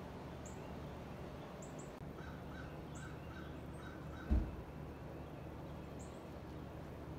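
Outdoor ambience with birds calling: short high chirps scattered throughout, and a run of six quick, evenly spaced calls about two seconds in. A single low thump sounds a little after four seconds.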